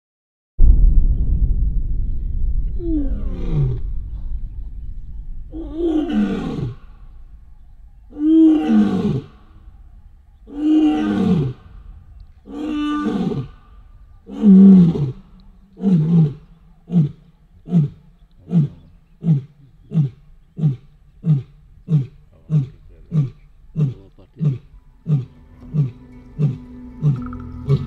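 Male lion roaring: a low rumble at the start, then a series of long moaning roars that fall in pitch, followed by a long run of short grunts, about one and a half a second, fading near the end.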